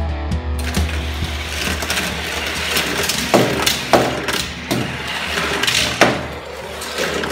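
Die-cast toy car rolling down the plastic spiral ramps of a toy parking garage: a steady rattling rumble broken by several sharp clacks in the second half.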